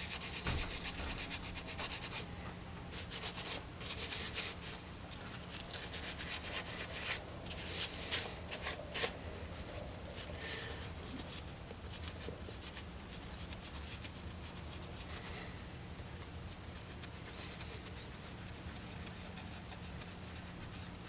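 Abrasive scouring pad rubbing the edges of a brass saw-handle medallion to clean it, in quiet, irregular scrubbing strokes that are busiest in the first half. A faint steady hum runs underneath.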